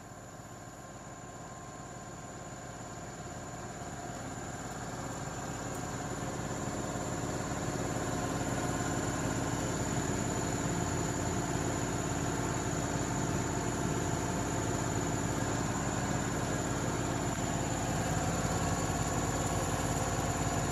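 A tyre being inflated through a hand inflator with a digital pressure gauge: air hissing steadily into the tyre over a steady mechanical hum. The sound grows louder over the first several seconds, then holds level.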